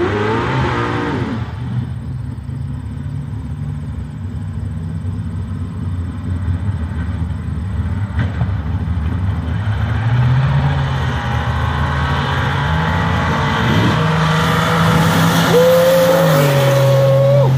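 Drag race cars running down the strip. The engine note builds and climbs in steps, with a whine on top near the end, then drops as a car passes close by.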